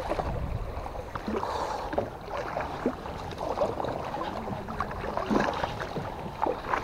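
Water sloshing and slapping against a small boat's hull in short irregular splashes, over a low rumble of wind on the microphone.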